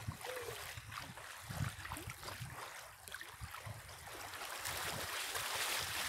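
Shallow lake water lapping and splashing around a person's legs as she wades through it, the splashing growing louder toward the end.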